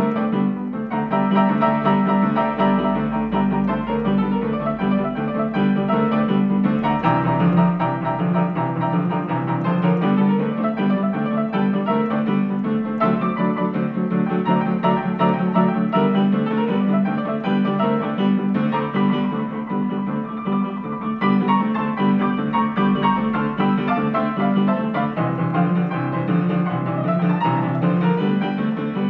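Solo upright piano playing boogie-woogie: a steady repeating left-hand bass figure under fast, busy right-hand treble figures.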